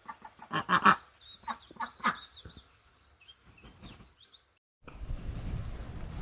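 Backyard poultry calling: a few loud calls in the first second, another about two seconds in, and scattered quieter ones. Near the end a cut switches to a steady noisy outdoor background.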